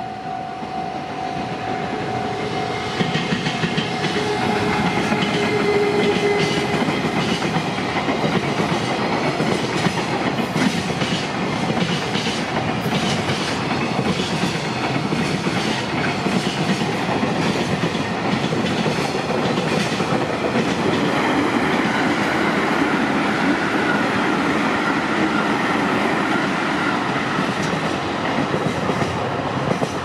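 A freight train passing over a level crossing, its wheels clacking over the rail joints. The crossing's warning bell rings with a steady tone, plain in the first few seconds and again near the end, and drowned out by the train in between.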